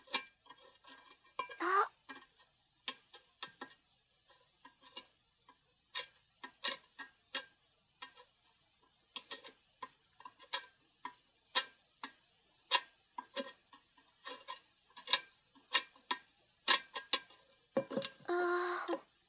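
Scattered, irregular light clicks and ticks, with a short rising whistle-like glide about two seconds in.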